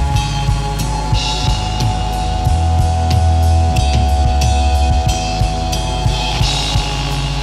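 Instrumental psychedelic rock with drum kit, bass and guitar/electronics. Kick and snare keep a steady beat under a heavy bass line, and a held high tone sounds from about a second in until near the end.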